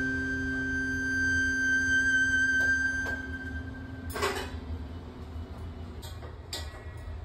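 Background music ending on one long held note that stops about four seconds in, followed by a few short, soft clicks.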